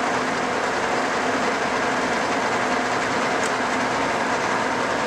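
Cincinnati No. 5 heavy-duty vertical milling machine running under power, its 25 HP main drive and geared head giving a steady mechanical drone with a few faint steady hums in it.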